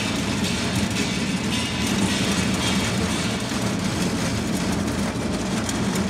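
Ring die feed pellet mill running under load, a loud, steady mechanical drone with a strong low hum as its motor and die press feed into pellets.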